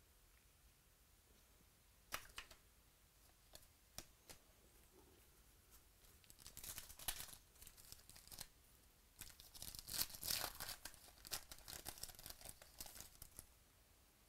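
A foil trading-card pack wrapper being torn open and crinkled. The crackling comes in bursts over several seconds, starting about halfway in and loudest about two-thirds through, after a few light clicks earlier on.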